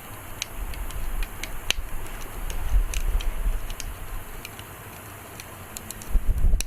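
Wood bonfire crackling, with scattered sharp pops and snaps. Low gusts of wind rumble on the microphone swell and fade, rising again near the end.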